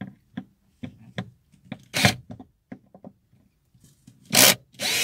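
Screws being undone from a car's plastic interior door trim: a run of small clicks and scrapes of the tool against the panel, with louder rasps about two seconds in and again near the end, and a longer continuous grinding noise starting right at the end.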